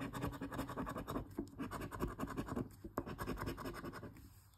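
Scratching a lottery scratch-off ticket: a coin or fingernail rubs off the latex coating in quick, repeated scrapes with short pauses, tailing off near the end.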